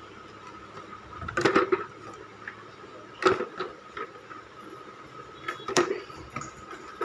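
Plastic-wrapped Cello storage canisters being handled and set down in a cardboard box, knocking against the box and each other three times. A faint steady high tone runs underneath.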